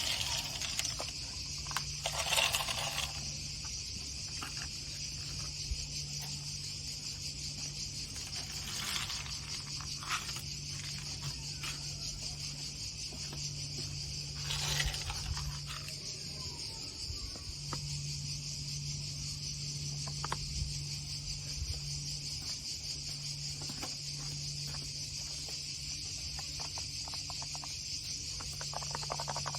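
A steady, unbroken high-pitched chorus of insects, with a few brief louder sounds scattered through it.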